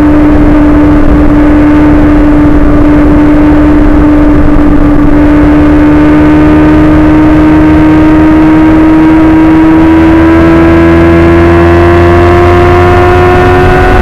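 Suzuki GSX-R1000's inline-four engine running at steady cruising revs, its pitch held level at first and then rising slowly through the second half as the bike gently gains speed.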